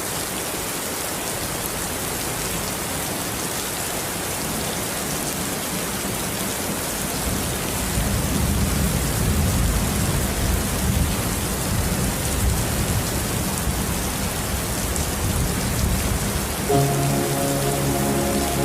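Steady rain hissing, with a low rumble of thunder building about halfway through. Soft sustained music notes come in near the end.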